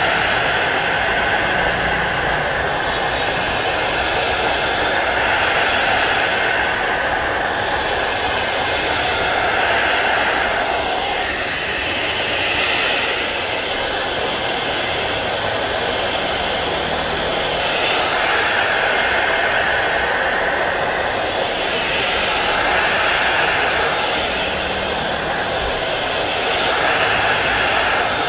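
Handheld hot air gun blowing steadily, a continuous rush of air that swells and eases every few seconds as its nozzle is moved over a phone's glass back cover, heating the adhesive to about 70–80 °C so the cover can be pried off.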